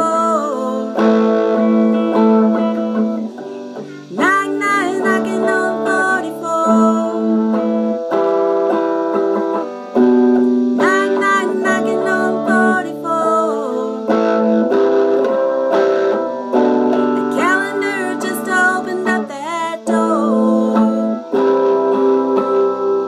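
A strummed guitar playing chords that change every couple of seconds, with a voice singing long notes that bend in pitch.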